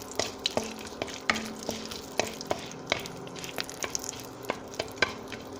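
Whole spices (bay leaves, cinnamon, cardamom) crackling and sizzling in hot oil in a pan as they are stirred, with many irregular sharp pops over a faint sizzle: the spices being tempered in the hot oil.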